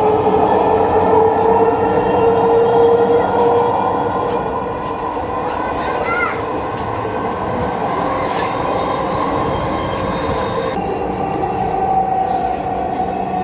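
Dhaka Metro Rail electric train running, with a steady electric whine that shifts slightly in pitch over the rumble of the wheels on the track.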